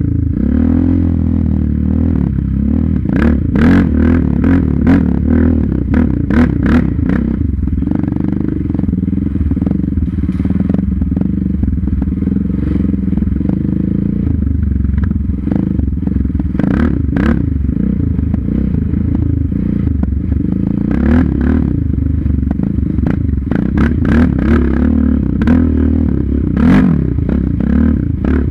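Engine of a Yamaha Raptor 700 sport ATV running on a dirt trail, its pitch rising and falling as the throttle opens and closes. Frequent short clattering knocks and rattles from the machine jolting over bumps and roots.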